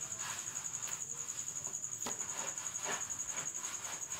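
A cricket trilling steadily in a high, rapidly pulsing tone, with a few faint clicks about two and three seconds in.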